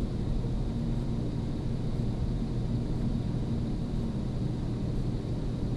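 Floodwater rushing past in a stream swollen almost to the top of its banks: a steady low rumble.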